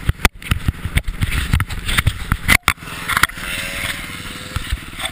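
Motocross bike ridden on a snowy ice track, heard from a camera mounted on the bike: its engine running under wind buffeting and frequent knocks on the camera. About three seconds in the knocking stops and the engine runs on more evenly.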